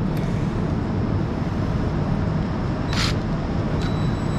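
A steady low mechanical drone, with one short burst of a DeWalt cordless impact driver spinning a bolt on the tractor's rear-end cover about three seconds in.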